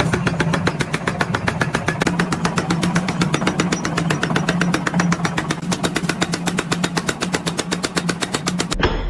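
A machine running with a fast, even clatter of about ten strokes a second over a steady hum, cutting off suddenly near the end.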